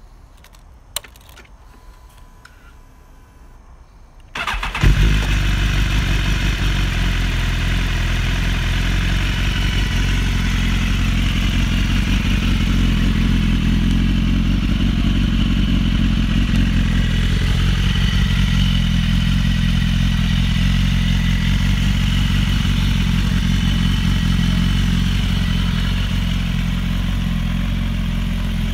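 2016 BMW S1000RR's inline-four engine, breathing through a carbon-fibre exhaust, is started about four seconds in after a single click. It catches with a brief loud burst and then idles steadily.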